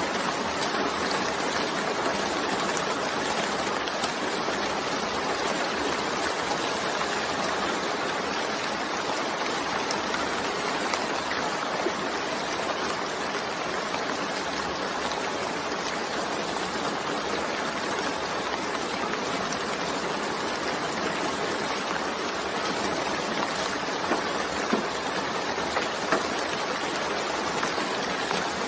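Steady rain falling, an even rushing hiss with a few sharper single drop ticks here and there.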